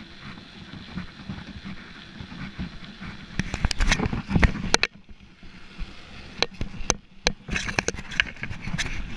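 Bicycle rolling along with a steady rush of tyre and wind noise, then clusters of sharp rattles and knocks from the bike jolting over rough, wet pavement, about three seconds in and again in the last few seconds.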